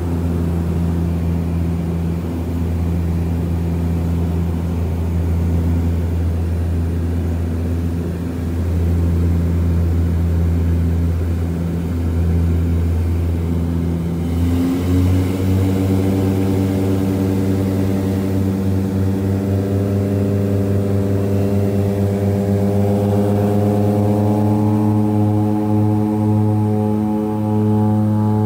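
Twin Otter's Pratt & Whitney PT6A turboprop engines and propellers droning steadily, heard from inside the cabin. About halfway through, the drone changes and its pitch then slowly climbs.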